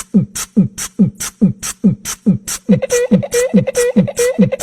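A fast, even percussive beat: a low kick-like thump alternates with a hissing hi-hat-like hit, about two and a half thumps a second. A bit over halfway in, a short pitched note joins each beat.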